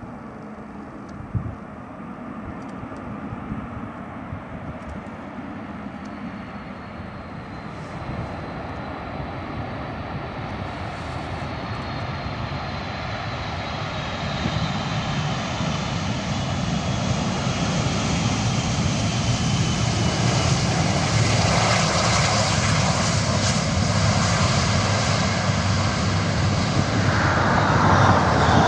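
Four jet engines of a Boeing 747 freighter on landing, growing steadily louder as it comes in and rolls out close by, with a high whine that slowly falls in pitch. A short knock comes about a second and a half in.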